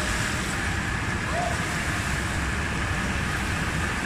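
Steady rush of churning water in an indoor swimming pool, the whirlpool's bubbling and swimmers' wash, with a faint short voice about a second and a half in.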